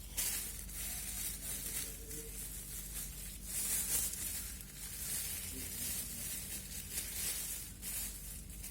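Packaging rustling and crinkling in irregular bursts as it is handled and opened, over a faint steady low hum.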